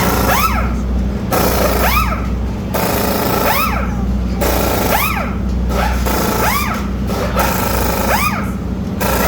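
Air tools working on a dragster during teardown: repeated rattling bursts, each about a second long, with a short whine that rises and falls between bursts, over a steady low hum.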